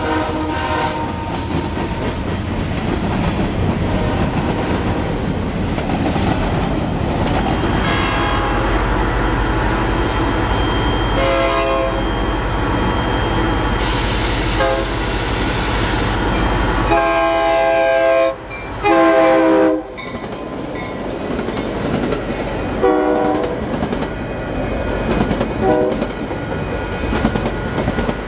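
Freight cars rolling past with wheel clatter on the rails, then a train approaching and sounding its locomotive horn several times. The loudest are two long blasts about two-thirds of the way through, before bilevel commuter coaches pass near the end.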